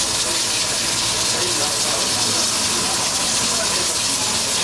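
Mutton broth boiling hard in a karahi on a gas stove, with the gas burners: a steady, loud hiss.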